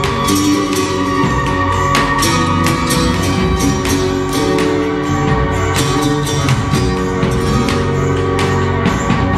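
Live flamenco-influenced world music from a band: a bowed electric fiddle melody over acoustic guitars, electric bass, drums and percussion, with steady percussive hits throughout.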